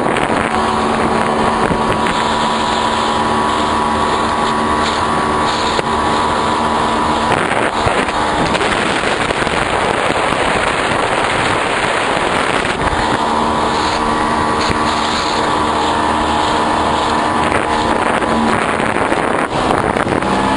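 Boat motor running steadily under a loud rush of wind and water. Its steady hum sinks into the rushing noise for several seconds in the middle, then comes back.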